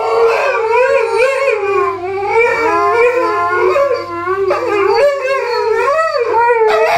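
Alaskan malamute howling: one long, continuous howl that wavers up and down in pitch. A second howling voice overlaps it near the end.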